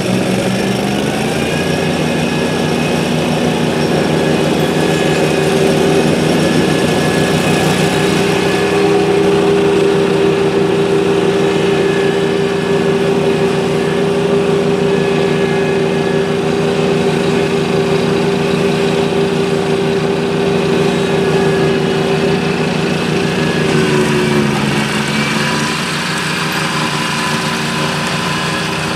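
The 27 horsepower Kohler engine of an Exmark Frontrunner zero-turn mower running steadily while it drives a Toro 52-inch snowblower attachment. The engine pitch climbs in the first couple of seconds, holds steady, then dips briefly near the end before settling a little lower.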